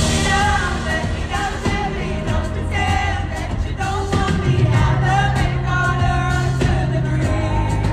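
Music with a singer: a sung melody over steady, held bass notes.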